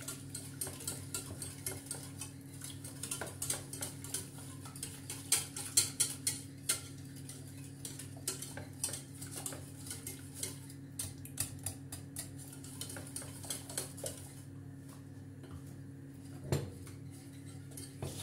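Wire whisk beaten fast against the sides and bottom of a stainless steel pot, a quick run of metal clicks and scrapes, whisking milk into cooked flour and fat to keep it from going lumpy. The whisking eases off near the end, and a single knock comes shortly before it ends.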